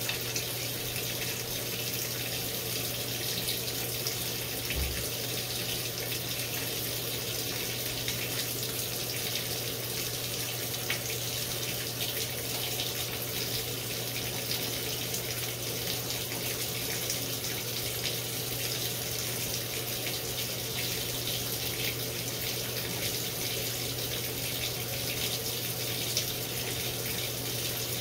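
GE GTW720BSN0WS top-load washer with water running steadily in the tub, over a steady low hum.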